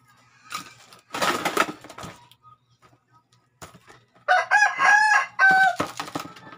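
A rooster crowing: one multi-part crow lasting about a second and a half, in the second half. It is preceded about a second in by a brief noisy clatter.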